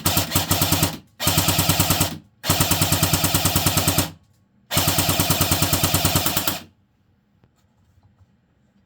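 Barra 400e battery-powered BB gun firing steel BBs on full auto in four bursts of about ten shots a second, the last ending about two-thirds of the way in.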